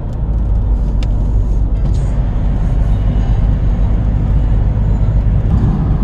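Steady low road and engine rumble heard from inside a car cabin while driving at highway speed.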